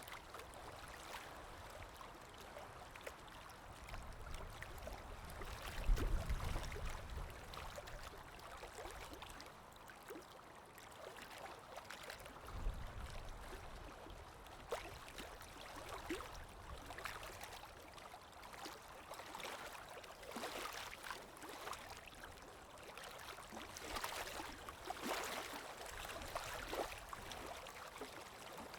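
Calm sea waves lapping and washing in, a steady hiss of water. There is a low thump about six seconds in, the loudest moment, and a softer one about twelve seconds in, and the washes grow busier and louder over the last third.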